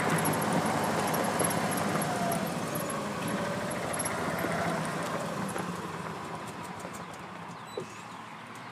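Road traffic: a truck passing on the highway, its engine and tyre noise fading away over several seconds. A short tap near the end.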